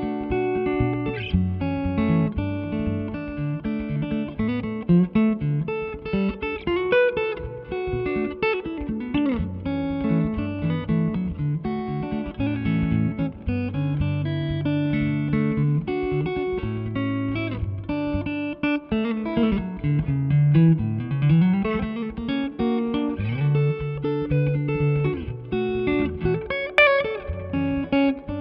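Electric guitar (PRS Silver Sky) played through a SineWave Sterling Custom Signature amp head: melodic playing mixing chords and single notes, with bent notes sliding in pitch.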